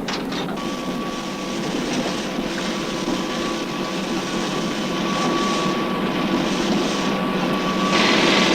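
Heavy machinery running steadily: a dense mechanical noise with a constant high whine over it, and a louder hiss coming in near the end.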